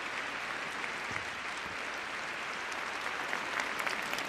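Arena audience applauding steadily, with single claps standing out near the end.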